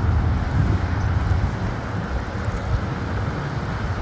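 River water rushing over a concrete drop structure in a steady noise, with wind rumbling unevenly on the microphone.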